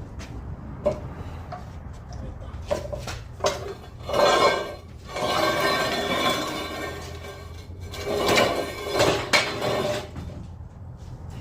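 Metal tools and parts knocking, clinking and scraping against each other during hand work on a car transmission, over a steady low hum. The loudest stretches are a few seconds of metallic scraping with ringing near the middle and again near the end.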